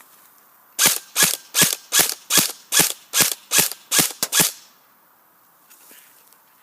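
A G&G CM16 Raider S electric airsoft rifle fires about eleven semi-automatic shots in quick succession, roughly two to three a second. The last two come closer together.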